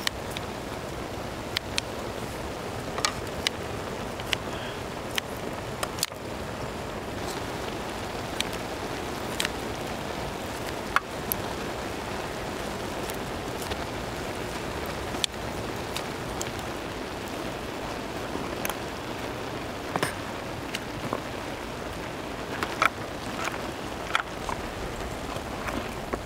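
Seafood broth simmering in a wide steel tray, a steady bubbling hiss, with irregular sharp clicks of kitchen scissors snipping a whole octopus and metal tongs knocking against the tray.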